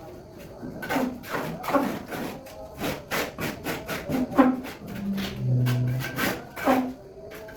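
Irregular knocking and scraping, about a dozen sharp knocks spread over several seconds, with a brief steady low hum a little past the middle.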